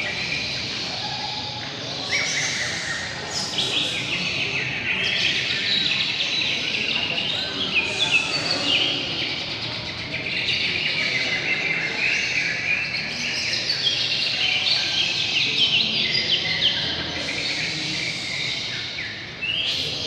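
Many caged songbirds singing at once, a dense, unbroken tangle of overlapping chirps and trills with no pause.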